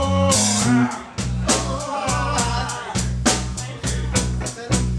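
Live blues band playing: electric guitars, electric bass and a drum kit keeping a steady beat.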